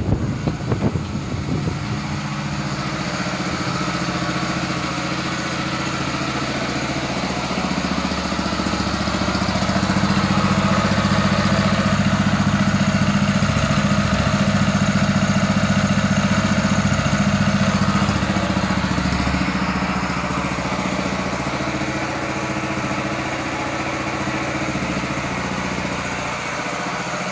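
Milking machine's vacuum pump unit running steadily with a low mechanical drone. It runs unevenly for the first couple of seconds, then settles, growing a little louder through the middle and easing slightly near the end.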